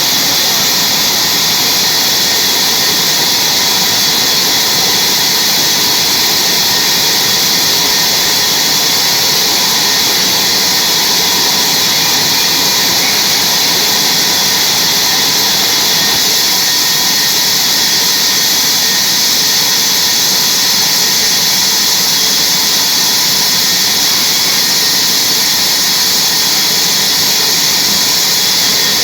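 Sawmill saw cutting through a large log: a loud, steady high-pitched hiss and whine that holds unchanged throughout.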